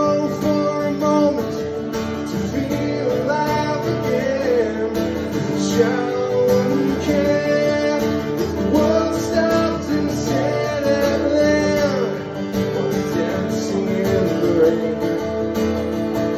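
Acoustic guitar strummed steadily under a man's sung vocal, a solo singer-songwriter performing live.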